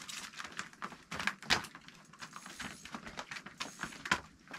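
A run of irregular light knocks and taps, with a few louder ones about a second and a half in and again near the end.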